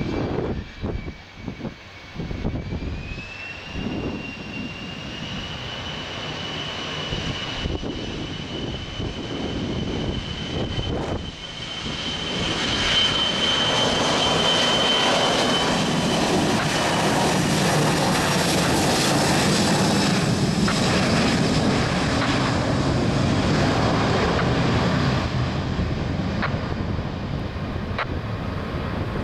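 Boeing 737-300's two CFM56 turbofan engines spooling up to take-off thrust, with a whistle rising in pitch a few seconds in. A loud, steady jet noise builds from about twelve seconds in as the aircraft accelerates down the runway, then eases slightly near the end as it lifts off and pulls away.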